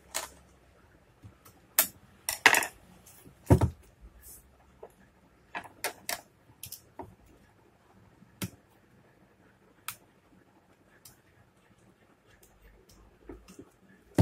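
A screwdriver and small metal parts give scattered clicks and taps against a DeWalt 801 angle grinder's housing while new carbon brushes are fitted into its brush holders. Most of the clicks come in the first ten seconds, with a heavier knock a few seconds in.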